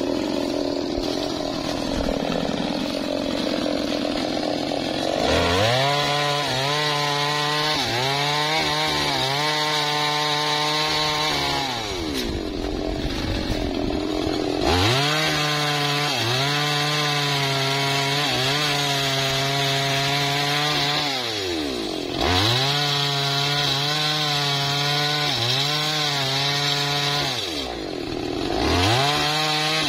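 Two-stroke chainsaw cutting a dead, dry teak log. It runs at a lower speed for the first few seconds, then revs to full throttle with the pitch wavering under the load of the cut. Three times it eases off briefly and revs up again.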